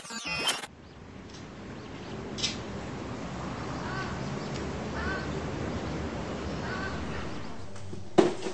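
Background noise that swells up over the first few seconds and then holds steady, with three short calls about four, five and nearly seven seconds in. A brief gliding sweep sounds at the very start and a sharp click comes near the end.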